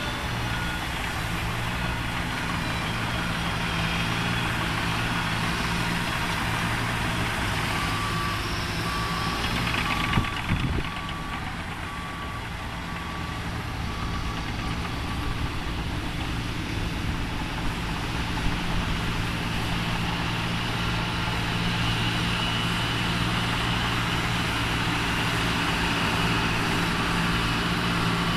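Cat D6K2 LGP crawler dozer's diesel engine running steadily as it pushes dirt. A backup alarm beeps about once a second for roughly eight seconds, starting around a third of the way in, and there is one short knock midway.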